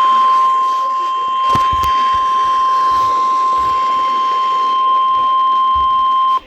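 Emergency alert attention tone in the NOAA Weather Radio style: one steady high-pitched tone that cuts off suddenly near the end, announcing a severe thunderstorm warning. A couple of faint clicks come about one and a half seconds in.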